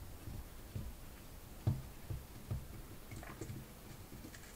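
Small metal handling noises as a cast Zenith carburettor body and its small screws and fittings are turned and worked by hand: a few soft knocks in the first half, then lighter ticks.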